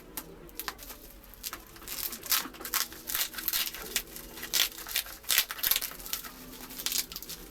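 Packaging being handled and unwrapped: dense, irregular crinkling and rustling with some tearing, busier from about two seconds in.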